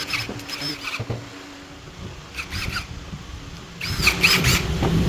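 A few short, high-pitched squeaks, then about four seconds in a cordless screw drill's motor starts up and keeps running.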